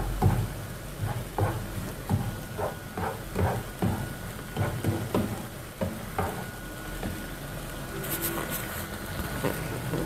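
Spatula stirring and scraping chicken strips, onions and green peppers around a non-stick frying pan, in irregular scrapes and taps, over a low sizzle of the frying.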